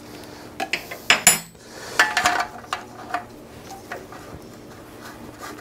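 Metal clinks and clatter of a spanner and a lambda sensor being handled over a steel lift table as the sensor is fitted into its bung on a titanium exhaust header. A cluster of sharp, ringing clinks comes in the first two and a half seconds, then lighter taps.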